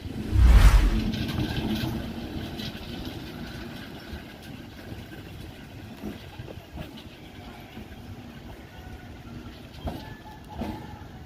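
Multiple-unit passenger train passing a platform and pulling away. Its last coach rushes by with a loud low gust of wind on the microphone about half a second in, then the wheel rumble fades over the next few seconds as the train recedes.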